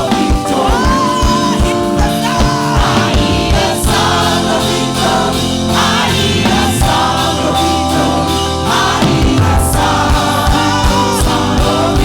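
Live gospel worship music: a choir singing over a band, with a steady drum beat.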